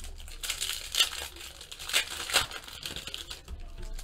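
Foil trading-card pack wrapper crinkling as it is handled, with a few sharper crackles about one and two seconds in.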